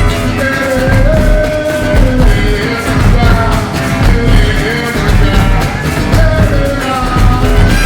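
A live carnival bloco percussion group and band playing an ijexá groove: heavy drums keep a steady beat under a held, sliding melody line.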